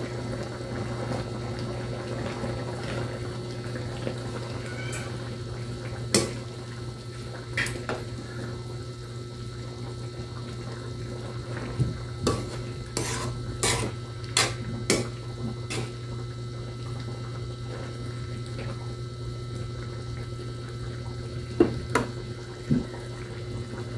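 Metal spoon clinking and scraping against a metal pan of simmering stew as it is stirred: scattered sharp clinks, a quick run of them about halfway through and a few more near the end, over a steady low hum.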